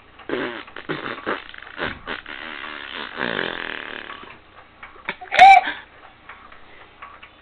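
A baby vocalising: short grunts and babbles, then a long rough, buzzy grunt. About five and a half seconds in comes a short, loud, high-pitched squeal.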